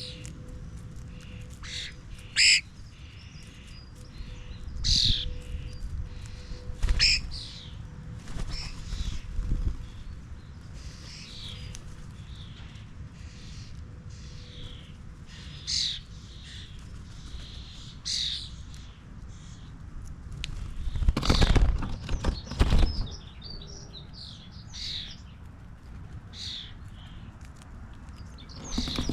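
Garden birds calling: many short, high chirps and calls from several birds, scattered and separate, with a few loud rough bursts about two-thirds of the way through.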